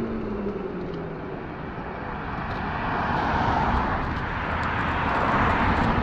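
Electric bike on the move: its hub motor's whine falls in pitch during the first second as it slows, then wind and tyre noise swell as it picks up speed again.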